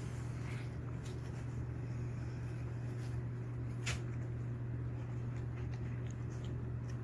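Pomeranian dog eating watermelon: faint scattered wet clicks of chewing and licking, with one sharper click about four seconds in, over a steady low hum.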